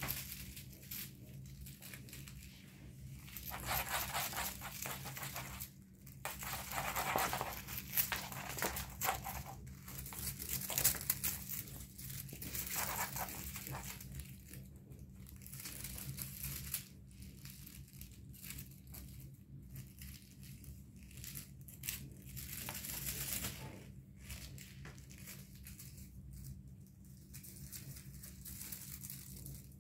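Irregular rustling and scuffling as kittens scramble after a feather wand toy on a laminate floor, the feathers and wand swishing. A low steady hum runs underneath.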